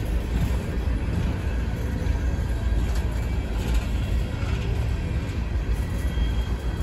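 Empty coal hopper cars of a freight train rolling past: a steady low rumble of steel wheels on the rails.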